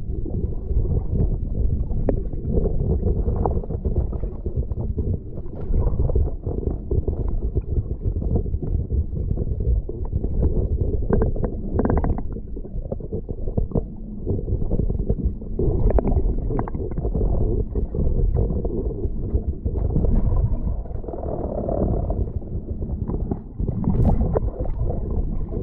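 Muffled, low rumbling of water moving against a camera held underwater, steady with small swells and a few brief clicks.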